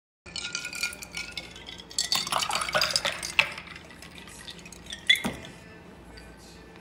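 Ice cubes and glassware clinking as a dark iced drink is poured from a small glass jug into a glass cup, with liquid splashing over the ice. About five seconds in comes a single sharp ringing glass clink, the loudest sound.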